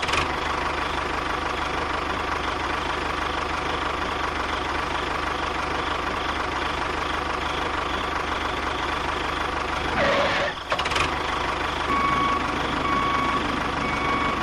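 Construction-vehicle engine running steadily. After a brief break about ten seconds in, a reversing beeper starts beeping about once a second over the engine.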